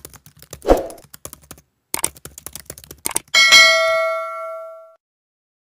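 Intro sound effect: two quick runs of sharp clicks, then a single bell-like ding about three seconds in that rings and fades away over about a second and a half.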